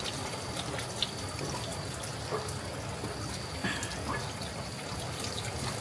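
Water trickling and running steadily from a water tank's outlet that flows all day and never runs dry.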